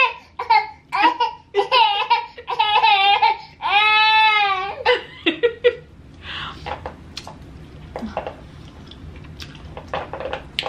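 High-pitched laughing and squealing, with quick giggly bursts and one long drawn-out squeal about four seconds in. From about six seconds in there are only soft clicks of eating crab legs.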